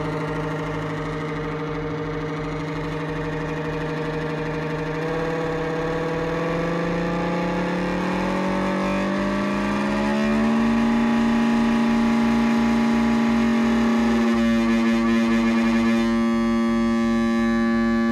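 Analog synthesizer (a 1970s Microwave Synthesizer kit) sounding one sustained tone rich in overtones. The pitch glides slowly upward over several seconds and then holds. Its tone colour changes twice near the end as the oscillator and filter knobs are turned.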